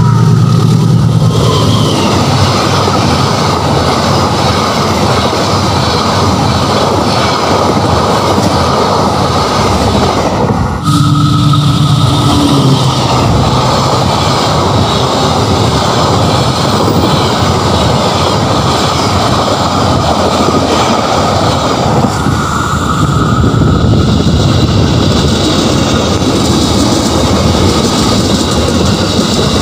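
Trains passing at close range in three takes joined by cuts: a diesel locomotive hauling a passenger train, then its passenger coaches rolling past, then an electric commuter train. A loud rushing rumble of wheels on the rails, changing suddenly at each cut, about a third and two thirds of the way in.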